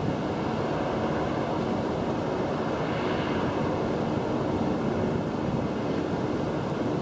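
Steady drone of the Leonora Christina, a fast catamaran ferry, running in under power, mixed with wind on the microphone.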